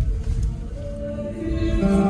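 Music with long held notes over a steady low rumble, the notes growing fuller near the end.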